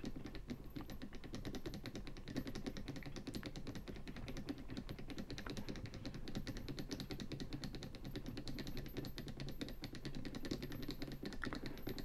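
Tubular lock pick being pressed in and turned in a tubular padlock cylinder, giving a steady run of rapid, fine clicks while the pins are being picked and the lock is not yet open.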